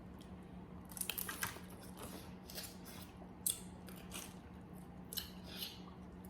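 Boiled crawfish shells being cracked and peeled by hand: a string of short, sharp crackles, the sharpest about three and a half seconds in.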